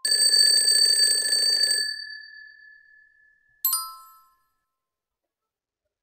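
Sound-effect alarm-clock bell ringing rapidly for about two seconds, the time-up signal at the end of a quiz countdown, its tone fading out. A single bright chime follows about three and a half seconds in, as the answer is revealed.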